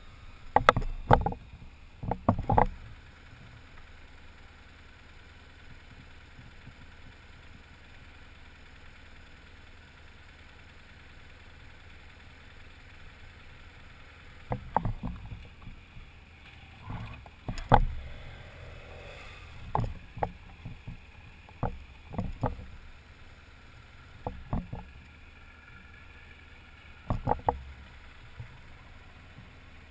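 A motorcycle engine idles with a low, steady hum. Short knocks and bumps on the helmet-mounted microphone come in clusters near the start and every second or two through the second half.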